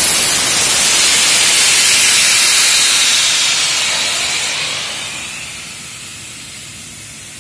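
Abrasive blasting nozzle blowing sand with compressed air against metal beams, a loud steady hiss. About four seconds in the blast is shut off and the hiss falls away over a second or two, leaving a fainter steady hiss.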